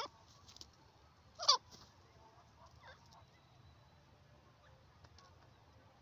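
Grey francolin giving short, sharp calls, each a quick sweep in pitch: one right at the start, a louder one about a second and a half in, and a faint one near three seconds.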